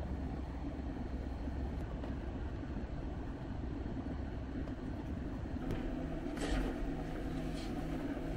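Steady low background hum, with a few short rustling scrapes about six to seven and a half seconds in as a car door trim panel is handled.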